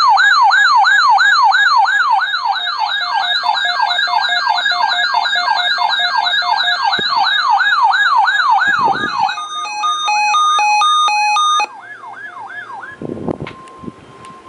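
Electronic siren wailing in a fast up-and-down yelp, with a stepped two-note hi-lo pattern joining about nine seconds in. Both stop suddenly a few seconds before the end, leaving a faint steady tone.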